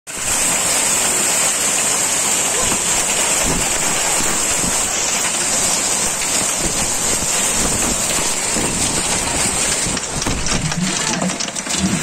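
Heavy downpour in storm wind: a dense, steady hiss of rain, breaking up about ten seconds in into many sharp, close ticks of drops striking nearby.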